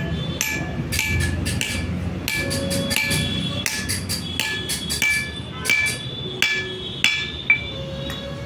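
Steel hammer striking a drive-shaft yoke and universal joint cross, about three ringing metal blows a second, during a universal joint cross change.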